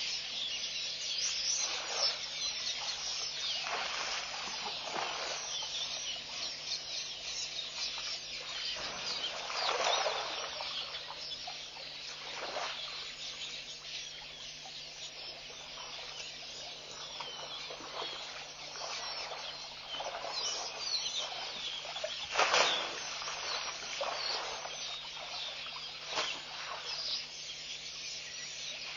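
African elephant moving about in a muddy waterhole, with several short wet splashes and squelches of mud, the loudest about ten seconds in and again a little past twenty seconds, over a continuous background of wild birds chirping.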